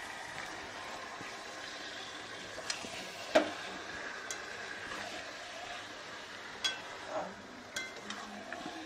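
Chicken and spices frying in oil in a pan with a steady sizzle, while a spatula stirs and scrapes and now and then knocks against the pan. The loudest knock comes about a third of the way in.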